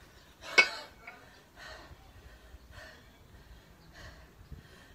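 A kettlebell lifter's hard breathing while cleaning two kettlebells to the rack: one sharp, loud gasp or exhale about half a second in, then softer breaths.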